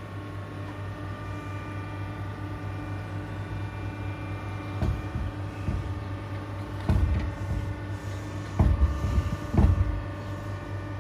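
Electric drive of an automated pond roof running as the roof lowers: a steady motor hum, with four low thumps in the second half.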